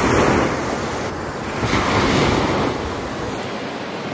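Small waves washing up on a sandy beach, swelling twice.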